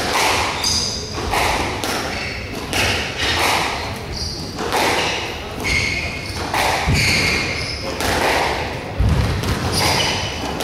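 Squash rally: the ball is struck by rackets and smacks off the court walls about once a second, with shoes squeaking on the court floor. A heavier thud comes about nine seconds in.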